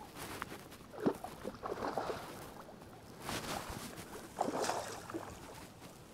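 River water splashing and sloshing in about four short bursts as a hooked salmon is worked toward the landing net at the surface.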